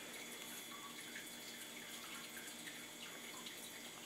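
Faint, steady background hiss with a few soft, quiet handling sounds as pieces of wet, soaked corrugated cardboard are pressed into a plastic tub.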